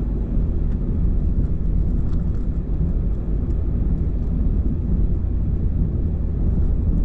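Pickup truck driving along a snow-covered road, heard from inside the cab: a steady low rumble of engine and tyres.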